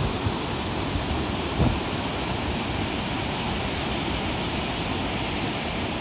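Steady wind rushing across the microphone over the rush of river water in the gorge below, with one brief louder low bump about a second and a half in.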